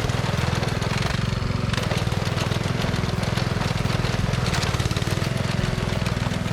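Small engine of a walk-behind rice binder running steadily as the machine cuts rice plants and ties them into bundles.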